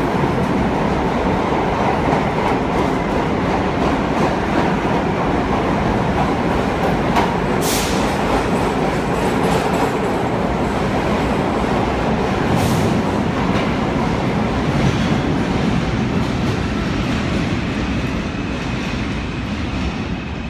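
Vintage R1/R9-type subway train pulling out of the station close by: a steady rumble of steel wheels on rail and traction motors, with clickety-clack over the rail joints. Two brief sharp high sounds come about 8 and 13 seconds in, and the noise starts to fade near the end as the last car leaves into the tunnel.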